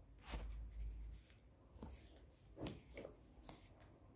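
Faint, soft slides and taps of Spanish playing cards being handled and laid out on a cloth-covered table, a few brief light sounds scattered through the pause.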